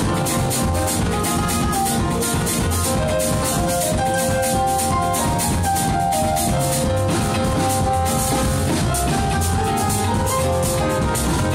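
A live jazz-soul band plays an instrumental passage. A drum kit keeps a steady beat on the cymbals, under upright double bass, electric guitar and keyboard chords.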